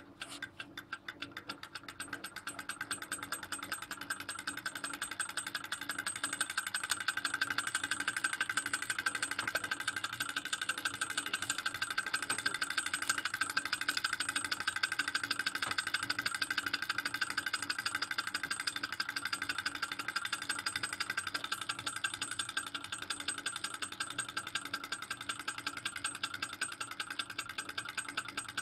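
Small model Stirling engine, heated by a wick burner, running: a fast, even mechanical rattle of its pistons, linkage and flywheel, growing louder as it speeds up over the first several seconds, then holding steady.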